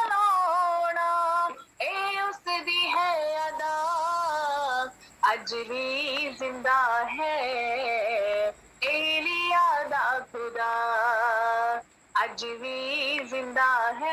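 A woman singing a devotional song solo, without accompaniment, in long held phrases with vibrato, broken by short breaths.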